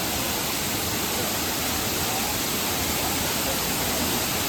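Steady rush of water pouring down the Five Falls (Aintharuvi) waterfall at Courtallam, an even noise with no breaks.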